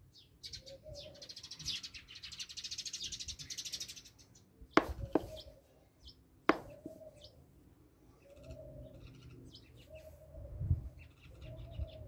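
Bird chirps and short repeated calls, with a fast buzzy rattle about two seconds in. Three sharp clicks near the middle are the loudest sounds.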